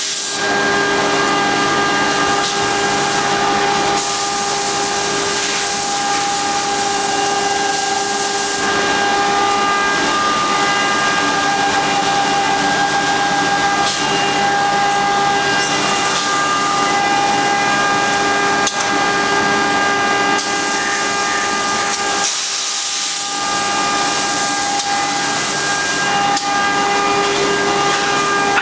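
HOMAG CNC woodworking router running: a steady high whine of several tones over a loud airy hiss, the hiss swelling for a few seconds at a time.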